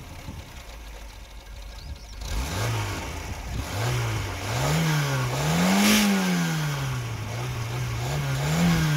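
Škoda Favorit 135L's 1.3-litre four-cylinder engine, just started, idling for a couple of seconds and then revved in several blips, the highest about six seconds in, heard from the exhaust at the rear of the car.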